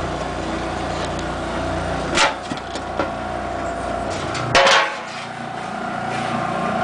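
Old electric motor of an Easy wringer washing machine, left unused for years, running with a steady hum. Two loud clunks come about two seconds in and again about four and a half seconds in, and the low drone drops away after each.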